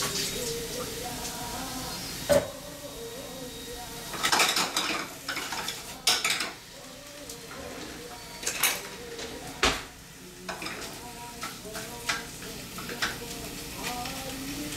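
Kitchen dishes, pans and metal utensils being handled: a series of sharp clinks, knocks and scrapes at irregular intervals, the loudest about two seconds in.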